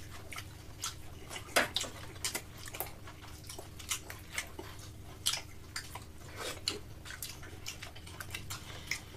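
Forks clicking and scraping on plates, with the smacking of people chewing pizza: many short, uneven clicks over a low steady hum.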